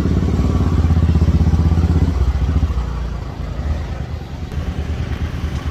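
Motorcycle engine idling close by with a steady low pulse. It drops to a quieter, rougher idle about two seconds in.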